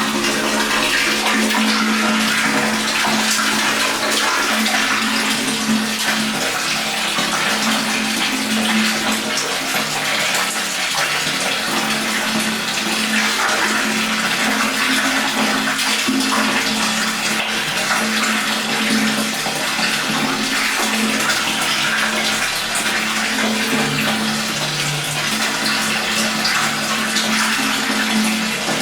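Water pouring steadily into a tank, a continuous splashing gush.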